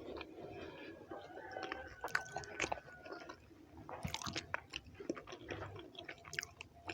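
Close-miked chewing of a mouthful of rice and beans: irregular short mouth clicks and smacks, with a denser run of clicks about four seconds in.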